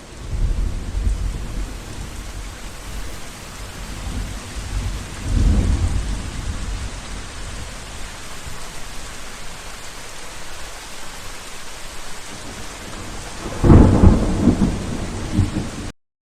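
Thunderstorm: steady rain with thunder rumbling, once near the start, again about five seconds in, and loudest about fourteen seconds in. The sound cuts off suddenly near the end.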